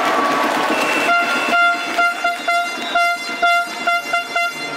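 A red plastic hand-held fan horn tooted again and again in a rhythm, about a dozen blasts of one steady pitch, the first one longest, over a crowd cheering.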